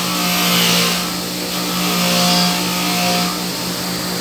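Black & Decker bench grinder running with a wire brush wheel scouring corrosion off a steel washing-machine drum shaft held against it. A steady motor hum sits under a scratchy hiss that swells and eases as the shaft is pressed on and moved.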